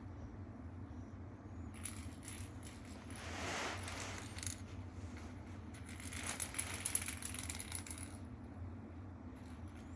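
A small perforated plastic cat ball toy clicking and jingling as a cat paws and bats it on a hard linoleum floor. The sound comes in a few short spells, the loudest from about six to eight seconds in.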